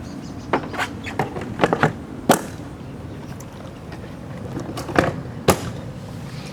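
A series of sharp knocks and clacks, about eight in all, bunched in the first couple of seconds with the loudest about two seconds in, then two more near the end.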